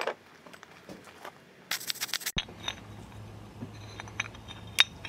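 Handling noises from cast aluminum bars: scattered light clicks and small knocks, with a brief scratchy scrape just before the middle.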